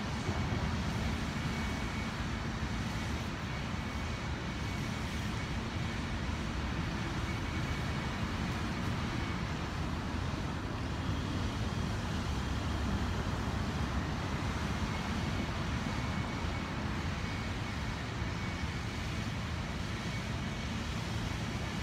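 Steady low rumble of city background noise, with no distinct events.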